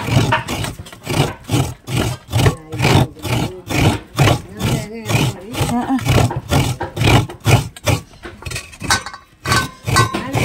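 Fresh coconut half scraped against a hand grater in quick, regular strokes, about two to three a second.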